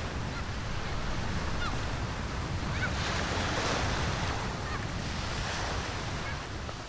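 Sea surf and wind at the shore: a steady rushing noise that swells a little in the middle, with a few faint short squeaks.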